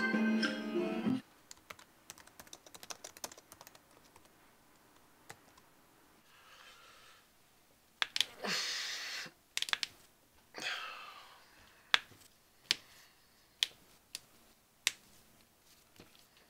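Background music cuts off about a second in, followed by a quick run of computer keyboard typing clicks. A few short hissing noises come in the middle, and near the end there are four sharp single clicks, roughly one a second.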